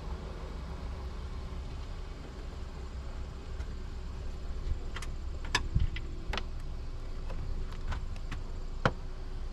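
Scattered sharp clicks and knocks from hands handling car door and cabin parts, starting about halfway in, over a steady low rumble.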